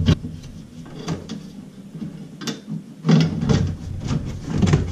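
Plastic LED under-cabinet light fixture being handled and pushed into place against the cabinet, with scattered clicks and knocks that grow busier about three seconds in.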